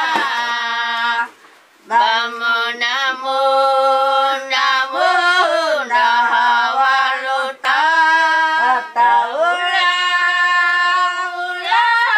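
A woman singing unaccompanied in long held notes, sliding between pitches, with a short pause about a second and a half in and brief breaks for breath later on.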